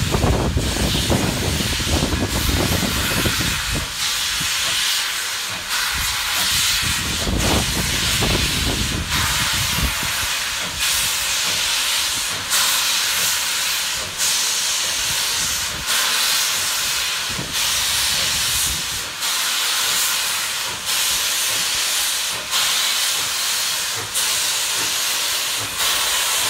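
Steam locomotive pulling slowly away with its cylinder cocks open, steam hissing loudly. The hiss swells in pulses every second and a half to two seconds, with a low rumble in the first few seconds.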